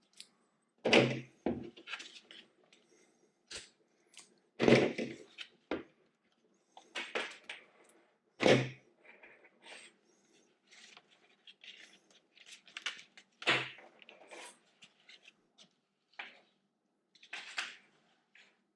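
Clamps being taken off a bike helmet: several sharp plastic clacks and thunks as they are released and set down, with handling rustles between.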